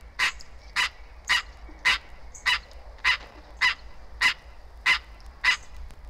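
Green treefrog (Hyla cinerea) giving its rain call: short, sharp calls repeated evenly, a little under two a second. This call differs from the male's mating call and seems to come before rainstorms. It is heard as a recording played from a vinyl record.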